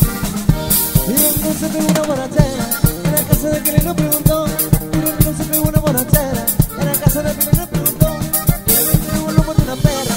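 Norteño band playing an instrumental passage live: three-row button accordion carrying the melody over electric bass, twelve-string guitar and a drum kit keeping a steady beat.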